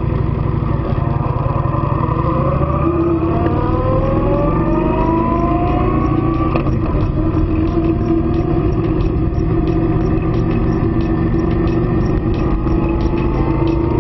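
Engine of the motorcycle being ridden, its pitch rising as it accelerates, dropping suddenly at a gear change about halfway through, then climbing again near the end, over steady rumbling wind and road noise. A faint regular ticking, two or three a second, runs through the second half.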